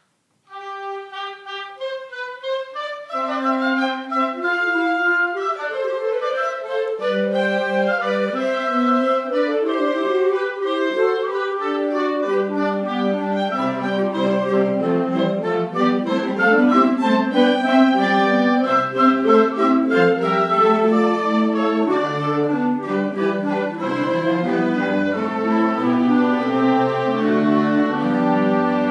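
Live instrumental ensemble playing a piece under a conductor. Higher parts start alone about half a second in, lower parts come in after several seconds, and the full ensemble then plays on with moving chords.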